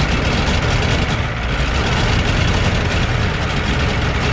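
Farm tractor engine idling steadily, close and loud.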